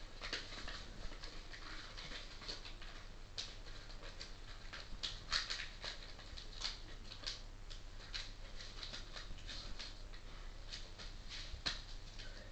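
Faint paper rustling and crinkling in short, irregular crackles as a sheet of origami paper is handled and its folds pressed flat.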